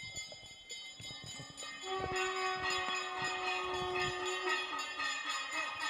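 Puja bells ringing rapidly and continuously for aarati, several bell tones sounding at once. The ringing grows louder about two seconds in as a lower-pitched bell joins.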